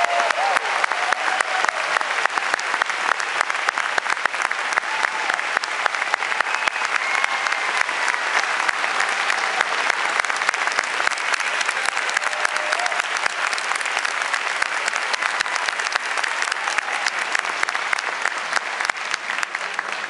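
Audience applauding steadily, with a few scattered cheers.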